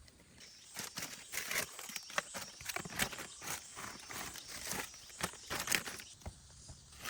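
Rustling and crackling of dry leaves and twigs being handled, with irregular snaps and clicks, busiest from about one to six seconds in.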